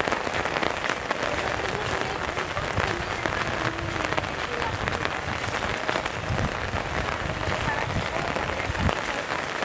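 Steady rain falling, a dense hiss with many close drop hits.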